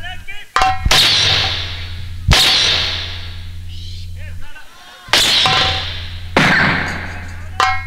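A series of about six loud, sharp strikes, each followed by a long ringing decay, spaced one to three seconds apart over a steady low electrical hum.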